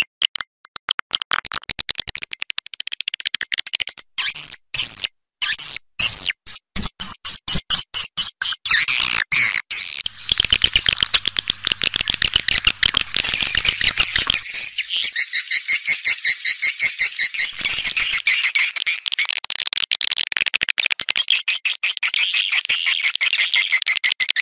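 Swiftlet calls from a recorded lure track made to draw swiftlets to a nesting house: rapid, high twittering chirps and clicks, spaced out at first and then a dense, continuous chatter from about ten seconds in.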